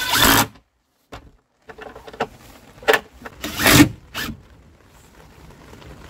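Makita cordless impact driver driving screws into OSB and timber in about four short bursts, one right at the start and three in quick succession around three to four seconds in.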